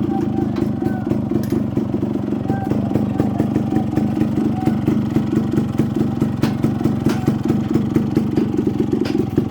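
An engine idling steadily with an even, fast beat.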